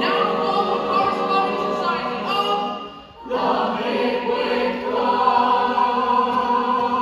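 A chorus of voices singing together in harmony. It breaks off briefly about three seconds in, then holds a long sustained chord.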